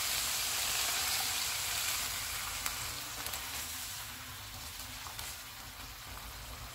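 Beef mince sizzling in a hot nonstick wok as a cup of water is added and stirred in with a spatula. The sizzle is strongest at first and dies down steadily, with a few light spatula scrapes.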